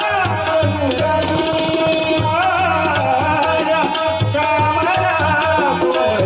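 Devotional bhajan music from a group: a pitched melody over a steady drum beat, with rattling hand percussion keeping time.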